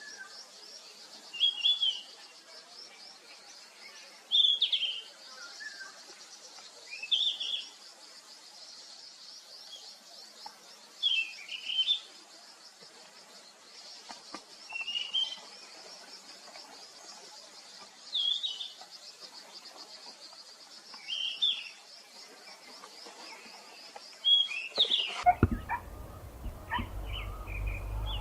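A bird gives a short call about every three seconds over a steady high buzz of insects. Near the end the sound cuts to other bird chirps over a low hum.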